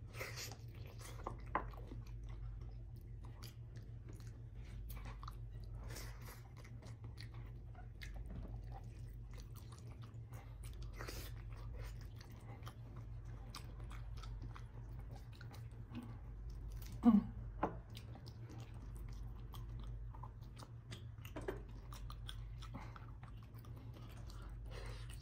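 Close-up chewing and biting: a person eating soft, fatty beef shank and rice by hand, with wet mouth clicks and smacks over a steady low hum. A brief, louder mouth sound comes about seventeen seconds in.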